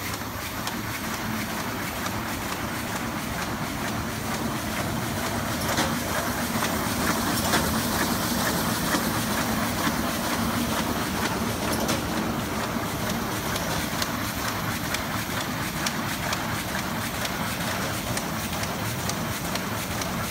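Müller Martini Ventura book-sewing machine running, a steady mechanical clatter of many fast, even clicks.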